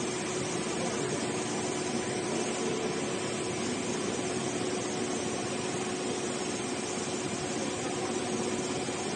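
A Richpeace computerised heating-wire sewing machine running: a steady mechanical whir of the sewing head and drives with a constant hum, which stops near the end.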